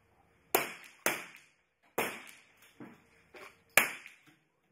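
.22 rimfire free-pistol shots fired one after another along the firing line: four sharp cracks and a couple of fainter ones, each with a short echoing tail.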